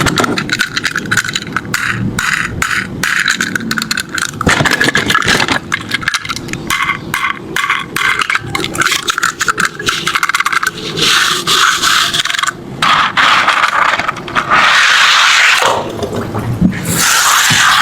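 Small die-cast toy cars scraping and rattling, with dense runs of rapid clicks and clatter and a few louder stretches of scraping.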